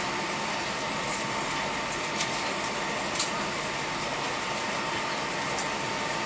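Steady Airbus A320 cabin noise: an even rush from the IAE V2527 engines and the air-conditioning, with a thin steady whine. Two small clicks come about two and three seconds in.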